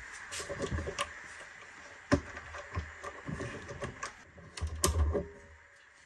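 Handling clatter from a motorized camera slider being lifted off its stand mount: a string of clicks and knocks, the sharpest about two seconds in, with heavier thuds around five seconds, then it goes quiet.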